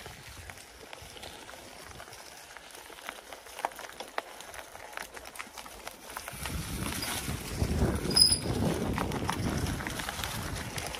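Mountain bike rolling fast down a dirt trail covered in dry leaves, with tyre crunch and small clicks and rattles. About six seconds in, wind buffeting on the microphone grows louder as the bike speeds up. A brief high squeal just past eight seconds comes from the bike's metal disc brake pads, which squeal readily.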